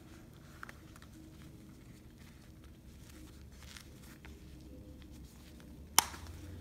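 Small Coach wallet being handled: soft rustles and light taps of its material, then near the end a single sharp click as the flap is pressed shut on its snap button.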